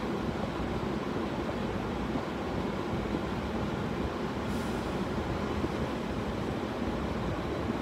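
Steady low rumble of heavy trucks and traffic heard from inside a parked car, with a brief hiss about four and a half seconds in.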